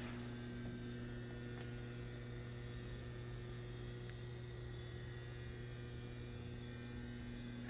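A steady, faint electrical hum, unchanging throughout, with no tool or metal sounds.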